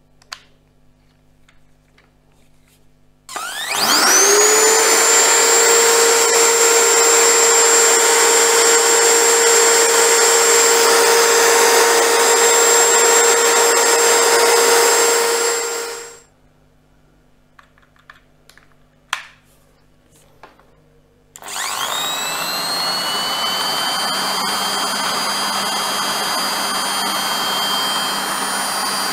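Bosch GSB 550 corded 550-watt impact drill running free with no load: after a click, the motor spins up about three seconds in with a rising whine, runs steadily at full speed, and winds down at about sixteen seconds. After a few clicks it starts again about twenty-one seconds in and runs steadily to the end.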